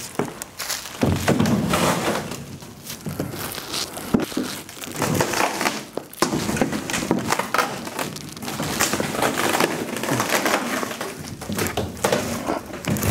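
A heavy CO2 laser cutter being pushed on its casters off a pallet and down a plywood ramp: wheels rolling and scraping on the wood, with irregular creaks, knocks and clunks.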